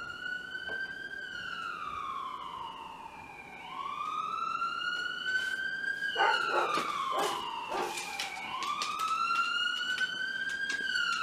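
Recorded ambulance siren played back: a slow wail that rises and falls about every five seconds, with a few short sharp clicks around the middle.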